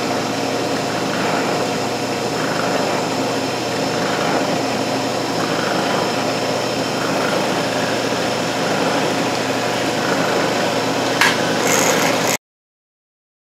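Mill-drill running steadily with its end mill facing a recycled HDPE plastic block to level it, with one short sharp sound about 11 seconds in. The sound cuts off suddenly near the end.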